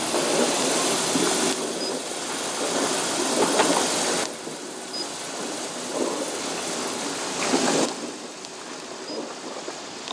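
Wind buffeting the microphone: a rushing noise in gusts that jumps up and down in level a few times.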